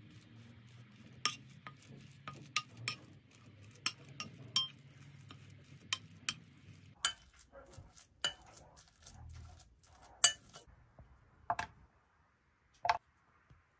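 A metal spoon clinks and scrapes irregularly against a glass mixing bowl as it stirs a sticky mix of ground nuts and minced raisins. Near the end come a couple of sharp snaps of a chocolate bar being broken into squares.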